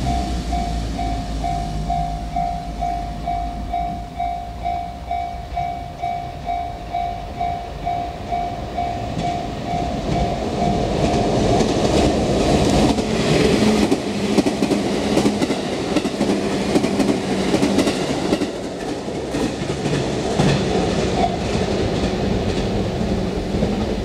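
JR-standard electronic level-crossing bell ringing in even dings, a little over two a second. About halfway through, a JR 211 series electric train runs over the crossing, its rumble and wheel clatter over the rail joints rising and drowning out the bell.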